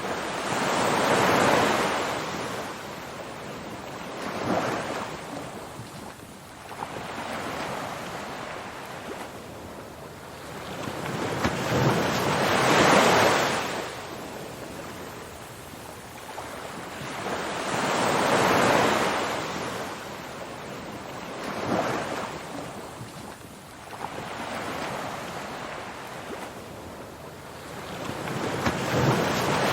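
Ocean waves breaking and washing in, one surge every five or six seconds, some much bigger than others.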